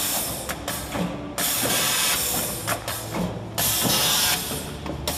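Multi-lane liquid sachet packing machine cycling: sharp bursts of air hiss about a second long, roughly every two seconds, from its pneumatic sealing and cutting section, with mechanical clicks and clatter between them over a steady low hum.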